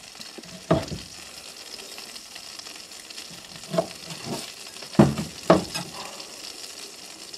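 Cleaver chopping venison tenderloin into chunks on a wooden cutting board: about five sharp chops, the loudest pair about five seconds in, over a steady hiss.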